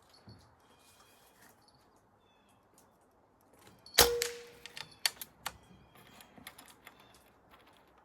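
A single shot from a Benjamin Armada PCP air rifle fitted with a small moderator, about four seconds in: one sharp report with a brief ringing tone after it, followed by several sharp clicks.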